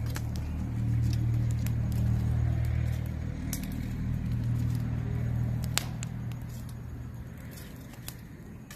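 A motor vehicle's engine hum swells, holds for several seconds and fades away, like a vehicle passing. Scattered sharp crackles and knocks come from a wood fire being poked with a stick.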